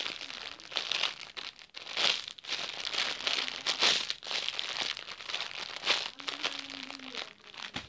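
Irregular crinkling and rustling as squishy toys are handled and set down between items.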